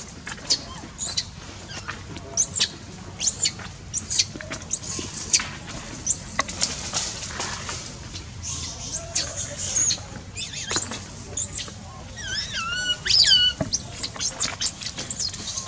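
Many short, high squeaks and chirps from animals, with a louder run of about five repeated falling cries near the end.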